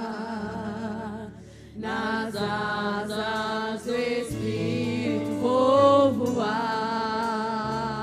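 Group of women singing a gospel hymn in long, held notes with vibrato, with a short break about a second and a half in.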